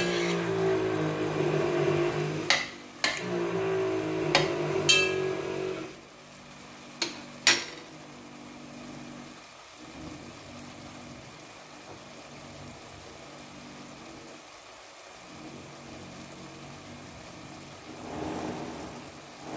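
A soy-sauce beef braise sizzling softly in a pot on a gas stove, a steady even hiss of the sauce starting to bubble. For the first few seconds a louder steady pitched drone covers it, with a few sharp clicks, and it stops about six seconds in.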